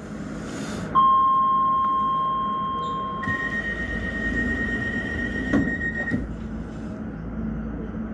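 Docklands Light Railway train door signal and doors at a station stop: a steady tone sounds about a second in, a higher tone takes over about two seconds later over a hiss of air, and the doors knock twice as they finish moving, about five and a half and six seconds in.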